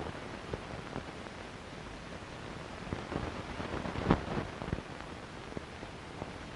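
Steady hiss and crackle of an early-1930s optical film soundtrack, with scattered clicks and a louder knock about four seconds in.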